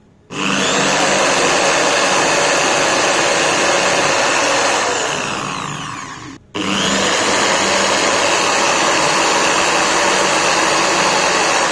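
Angle grinder running at high speed, spinning a sewing machine's universal motor coupled to it as a generator: a loud, steady whine. About five seconds in it winds down with falling pitch and stops, then starts again almost at once and runs steadily.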